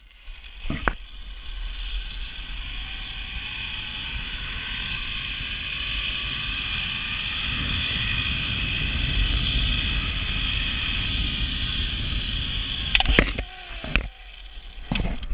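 Zip-line trolley pulleys running along the steel cable: a steady whirring hiss that builds for several seconds and then fades. It ends in a few sharp knocks near the end as the trolley reaches the platform.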